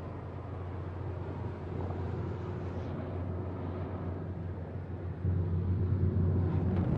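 Steady road noise inside a moving car's cabin at highway speed: a low engine and tyre drone with a wash of wind noise, growing louder about five seconds in.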